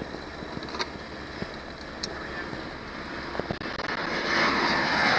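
Johnson 90 hp outboard motor running slowly, a steady low hum with water and wind noise. From about four seconds in, a broad rushing noise swells and becomes louder than the motor.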